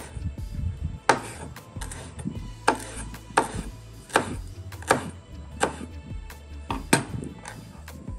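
A knife chopping celery on a cutting board, a sharp cut about every three-quarters of a second, with a double cut near the end. Background music plays underneath.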